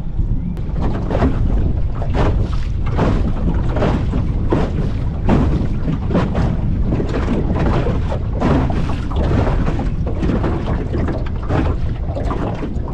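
Jon boat under way on open water: a steady low rumble with wind buffeting the microphone in short, irregular gusts.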